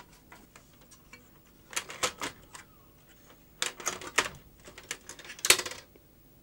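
Plastic and metal clicks, knocks and rattles as a VHS tape deck mechanism is handled and lifted out of its chassis. The sounds come in clusters about two seconds in and about four seconds in, with the loudest knock at about five and a half seconds.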